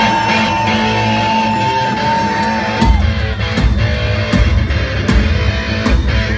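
Live rock band: an electric guitar holds one long note, then about three seconds in the drums and bass come in hard and the full band plays on with cymbal hits.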